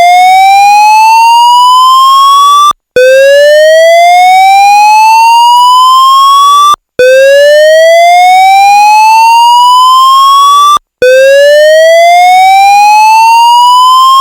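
AS2220 fire alarm evacuation tone: a loud, pure siren-like tone that climbs steadily in pitch over nearly four seconds, breaks off and starts again low, repeating about every four seconds. It is the signal to evacuate the building.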